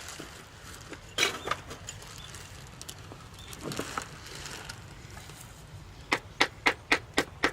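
A run of sharp, evenly spaced knocks, about three a second, starting about six seconds in, over a quiet background with a few scattered clicks.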